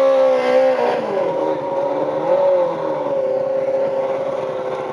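Motorcycle engine held at raised revs while staged at a drag strip start line. The pitch dips about a second in and briefly rises again near the middle.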